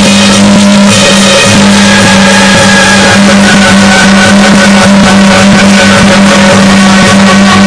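Loud, distorted festival music with a steady low drone beneath it, running evenly with no break.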